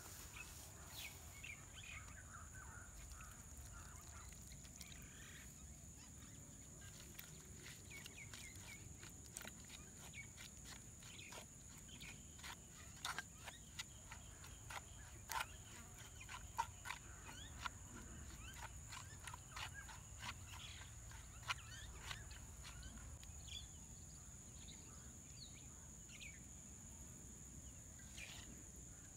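A spoon clicking and scraping against a clay cooking pot while a thick spice paste is stirred, in scattered short taps that come thickest in the middle of the stretch.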